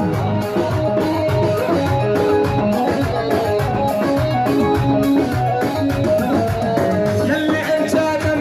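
Music with singing over a steady drum beat and plucked or keyboard melody lines.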